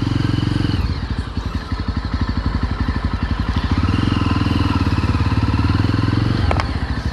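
Yezdi Roadster's single-cylinder engine running as the bike is ridden, a steady pulsing exhaust note that dips briefly about a second in and again near the end.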